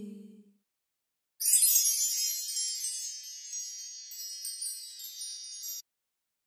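A hummed vocal note dies away in the first half second. Then, about a second and a half in, a wind-chime sound effect comes in suddenly: many high ringing tones together that slowly fade, then cut off abruptly near the end.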